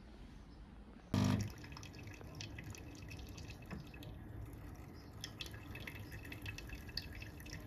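Siemens EQ.300 bean-to-cup coffee machine dispensing coffee into a glass of ice cubes. A brief loud mechanical hum comes about a second in, then coffee dripping and trickling, with many small crackles.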